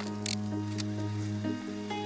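Background music: held notes over a steady bass drone, with a short hiss about a third of a second in.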